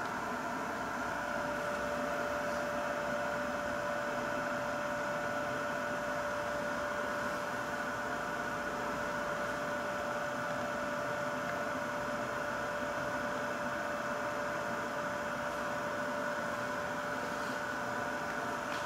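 Leister Hotwind System hot-air blower running steadily, heating up at 24% power: the rush of its fan with a steady whine over it.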